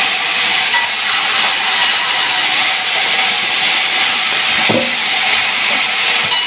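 Sawmill saw cutting through a sengon log: a loud, steady sawing hiss with a faint whine, and a brief knock about three-quarters of the way through.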